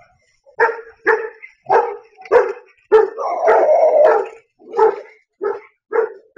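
Dog barking in pursuit of a mountain lion: a rapid series of loud barks, about two a second, with one longer unbroken stretch of sound around the middle.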